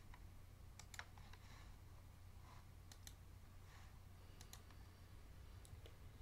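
Faint computer mouse clicks, about half a dozen scattered through, over a low steady hum.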